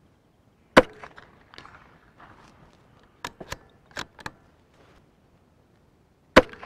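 Anschutz 1761 bolt-action .22 LR rifle fired twice, about five and a half seconds apart. Between the shots the bolt is worked, giving four quick metallic clicks as it is lifted, drawn back, pushed forward and closed.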